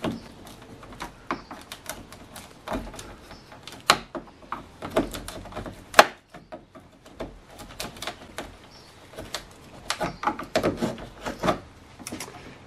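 A flathead screwdriver prying and rocking the plastic radiator retaining clips of a BMW E36 M3, making irregular clicks and scrapes of plastic and metal. The sharpest click comes about six seconds in.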